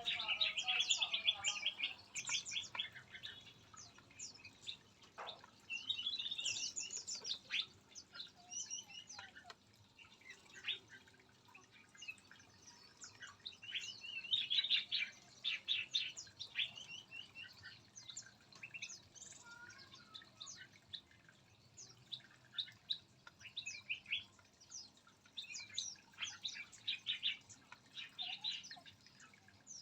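Several small songbirds chirping and calling at once: short, high chirps and quick trills that overlap and come in irregular bursts.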